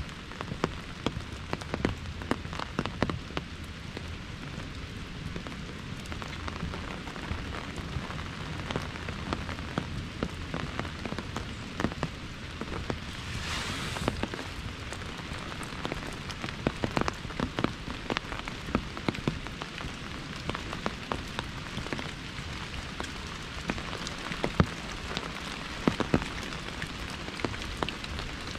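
Rain falling on an umbrella overhead: a steady hiss of rain with many sharp taps of single drops on the canopy. About halfway through, a brief hiss swells and fades in under a second.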